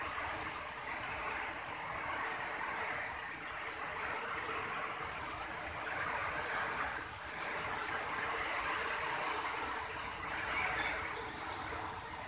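Steady rain falling in a Kalbaishakhi (nor'wester) storm, an even hiss with a few sharp ticks scattered through it.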